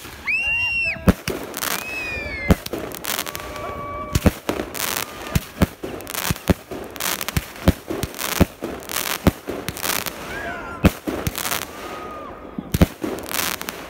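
Consumer fireworks going off overhead: an irregular string of sharp bangs from launches and bursts over a constant crackle of crackling stars, with a few high whistling tones in the first few seconds.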